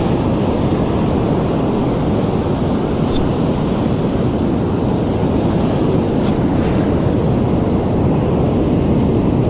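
Ocean surf on the beach with wind buffeting the microphone, a steady rushing noise.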